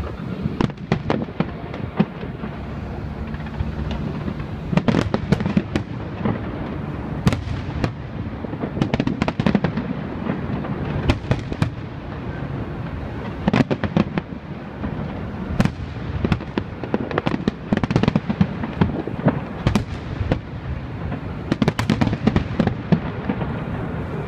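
A fireworks display: many sharp bangs and crackles in irregular clusters over a continuous low rumble.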